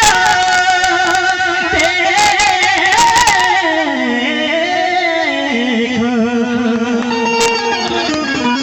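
A singer's voice carrying a wavering, ornamented melody over instrumental accompaniment. Percussion strikes run through the first few seconds, and the melody slides down to a lower pitch about halfway.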